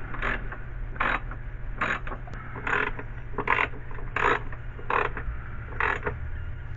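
Socket ratchet clicking in short, even strokes, about one every 0.8 seconds, eight in all, as bolts on the wiper motor are tightened down.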